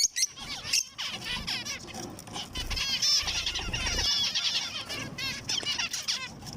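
Zebra finches calling with short, squeaky chirps, and a quick run of rapidly repeated arched notes in the middle.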